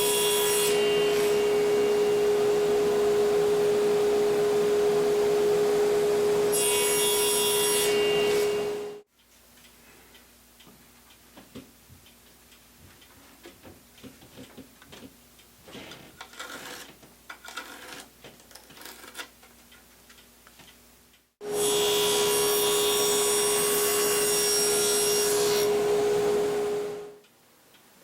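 A stationary woodworking power tool runs with a steady hum while a small block of wood is cut, then stops about nine seconds in. Faint clicks and knocks of the wood being handled follow, then the tool runs again for about five seconds and stops near the end.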